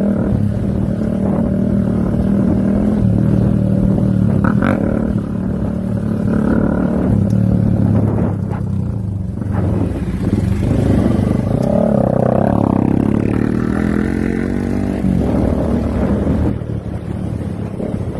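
Motorcycle engine running on a rough dirt track, its pitch rising and falling as the throttle is opened and closed, with a few short knocks from the bumpy ground.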